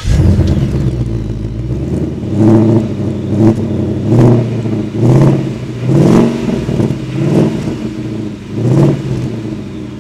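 Ford Mustang Mach 1's 5-litre V8 bursts into life loudly, then idles and is revved in about seven short throttle blips, each rising and falling.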